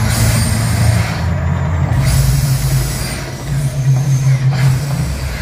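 Mirage volcano show erupting: a loud, deep rumble with hissing roars from the gas-fired flame bursts, coming in surges with short lulls about a second and a half in and again past three seconds.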